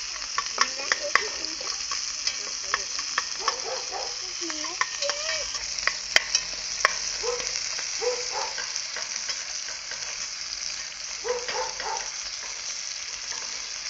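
Chicken pieces and freshly pounded garlic sizzling in oil in a pot over a wood fire, a steady hiss broken by sharp clicks, the loudest a little after six seconds. A few short pitched sounds that glide up and down come through in the middle of it.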